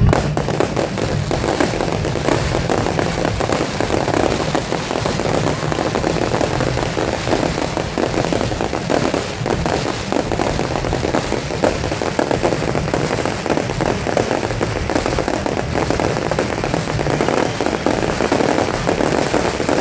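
Fireworks display: a dense, unbroken barrage of rapid bangs and crackles from many bursting shells, kept up at an even level.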